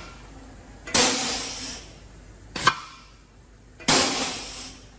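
Air brake chamber cycling a rebuilt SAF HDX truck disc brake caliper under compressed air: sharp metallic clacks alternate with hisses of air about a second long, about every one and a half seconds, as the caliper is applied and released in a function test.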